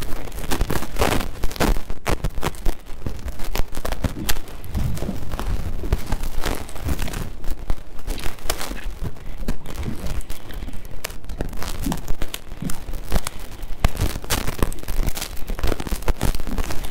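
Wind buffeting the camera microphone on open water: a steady low rumble broken by dense, irregular crackles.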